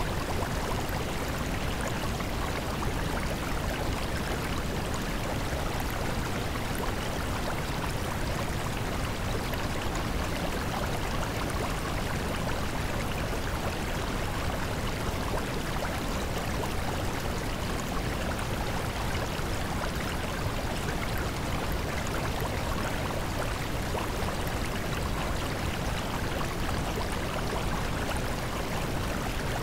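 Steady rushing water noise, like a flowing stream, even and unbroken with no swells or pauses.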